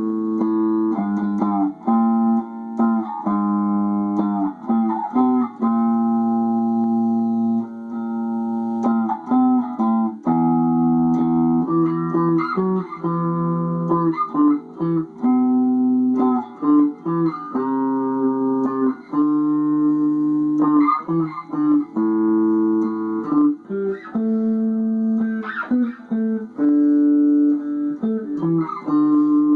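Instrumental music played as a run of held chords, each lasting a second or two before changing to the next.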